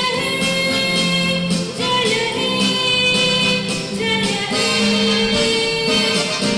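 A song: a singing voice over instrumental accompaniment, with long held notes changing pitch every second or two.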